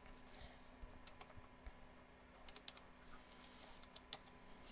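Faint keystrokes on a computer keyboard: a dozen or so scattered single key presses as a password is typed, over a faint steady hum.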